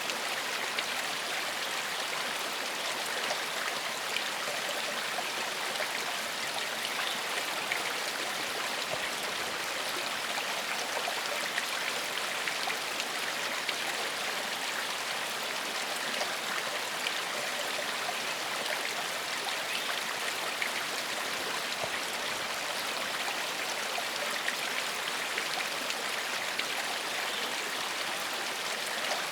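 Shallow forest stream flowing steadily over stones, a continuous rushing babble with small splashes and trickles.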